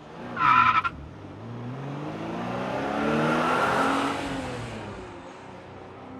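A car engine climbing in pitch and loudness for about three seconds, then dropping away. It is preceded by a short, loud, high-pitched chirp with a few clicks about half a second in.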